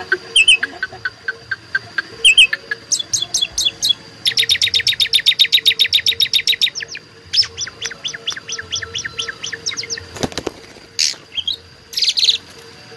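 Asian pied starling (jalak suren) singing: short chirps and whistles, then a long, fast rattling run of evenly repeated notes lasting a couple of seconds, followed by more repeated notes and brief whistles.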